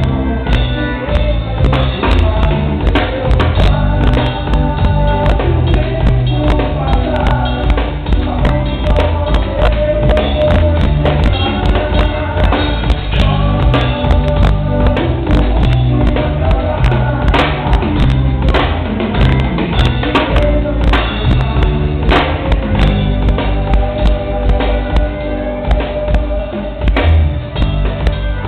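A band playing a song, with a singer over a drum kit beat and backing instruments, in a dull-sounding recording that lacks the highest treble.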